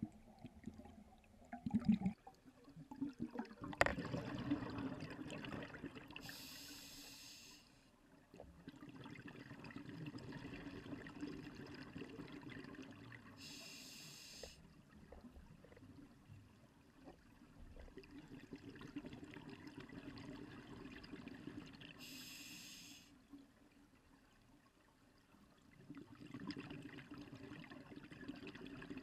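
Scuba diver breathing through a regulator underwater: three short hisses on the inhales, about eight seconds apart, with long bubbling rumbles of exhaled air between them. A few sharp knocks about two and four seconds in.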